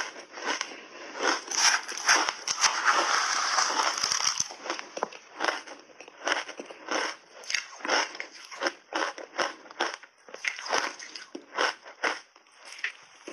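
Close-up crunching and chewing of mouthfuls of shaved ice coated in milk powder: sharp crisp crunches about twice a second, with a denser stretch of continuous crunching a couple of seconds in.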